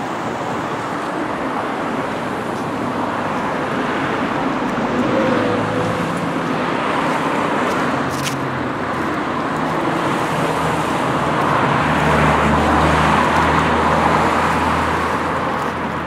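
Road traffic: cars running along the road with a steady rush of tyre and engine noise. A low engine hum swells about twelve seconds in.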